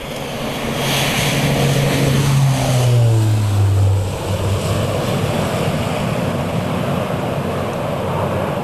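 Twin-engine turboprop airliner passing low on takeoff: a propeller drone that drops in pitch over a few seconds as it goes by, then steady engine noise.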